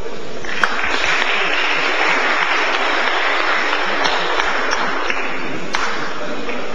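Audience applauding. It starts about half a second in and dies down near the end.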